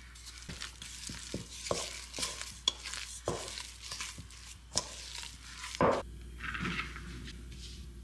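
A wooden spatula stirs shaggy biscuit dough in a stainless steel bowl, making a run of scrapes and light knocks against the metal, with one louder knock just before six seconds in. After that comes a softer brushing as hands spread flour over a cutting board.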